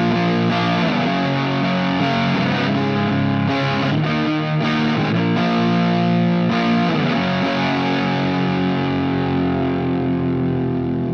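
Strat-style partscaster electric guitar played through a distorted amp setting, noodling on notes and chords. The last chord is left to ring for the final few seconds.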